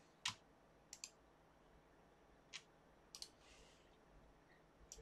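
Faint scattered clicks of a computer mouse, about seven in all, some in quick pairs like double-clicks, over near-silent room tone.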